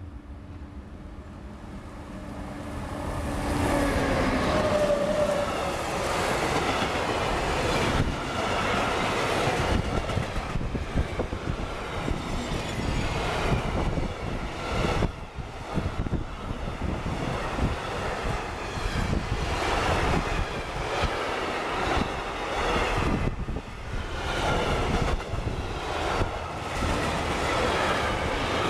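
Electric freight train passing close by on the Brenner railway, carrying lorry trailers on its wagons. It grows louder over the first few seconds as the locomotive comes by with a steady hum. The wagons then roll past with a continuous rumble and rhythmic wheel clatter over the rail joints.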